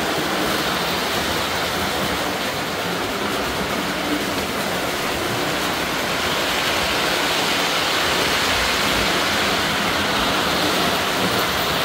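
Model train running along its track, a steady continuous rolling rumble.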